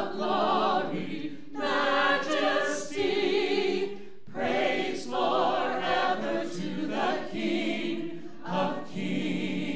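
Church worship team singing a song together into microphones: several voices in sung phrases with short breaks between them.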